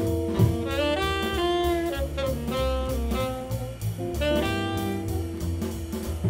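Jazz film score: a saxophone-led melody of held and moving notes over double bass and drum kit.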